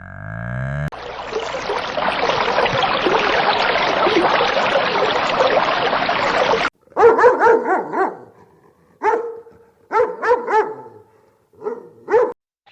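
A dense, steady noise for about six seconds, then a dog barking in short bursts, about eight barks in small groups.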